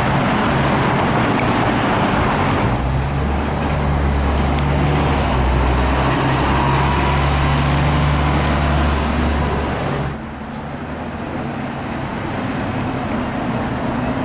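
Diesel city buses and car traffic passing on a downtown street. For several seconds a bus engine's low, steady drone dominates. It stops abruptly a few seconds before the end as the sound cuts to quieter street noise.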